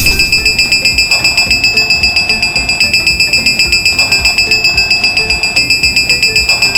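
Japanese railroad crossing warning bell ringing 'kan kan' in a fast, steady high-pitched beat of about six strikes a second, starting abruptly, over background music.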